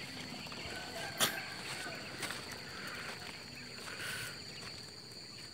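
Quail in stacked plastic transport crates giving a few faint short calls over a steady high-pitched hum. A few sharp clicks come through, the loudest about a second in.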